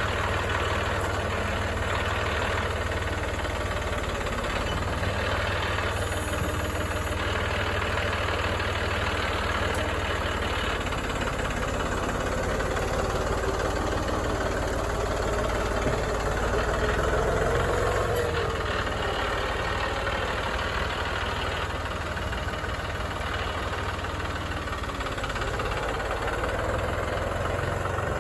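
A vehicle engine idling steadily with a constant low hum.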